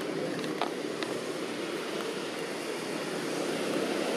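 Steady, distant engine drone, getting slightly louder near the end, with a few faint clicks in the first second.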